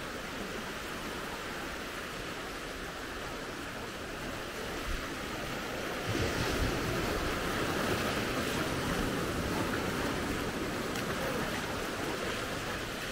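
Shallow sea water washing over sand and stones at the shoreline as the tide comes back in, a steady wash that grows louder about six seconds in.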